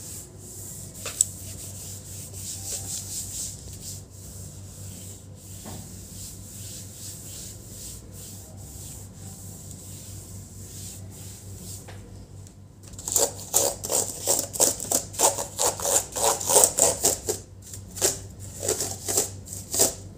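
Cloth rubbing over a laptop's lid, wiping off foam cleaner: soft, even wiping at first, then from about two-thirds of the way through, faster and louder back-and-forth scrubbing strokes.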